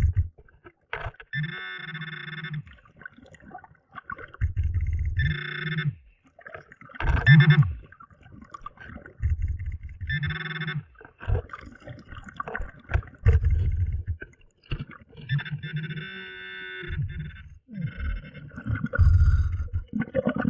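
A scuba diver breathing underwater through a regulator in a slow, even cycle: a low bubbling rumble on each exhale alternates with a higher hiss on each inhale, about every four to five seconds.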